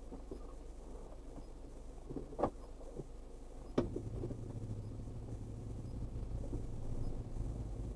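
A car's engine hum heard from inside the cabin, with two sharp clicks, the second about four seconds in. After the second click the engine's low hum steps up and grows louder as the car gets ready to pull away.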